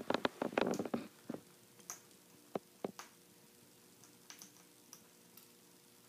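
Parrot eating pellets from a plastic feed cup: a quick run of crunching clicks over the first second and a half, then scattered single clicks and taps.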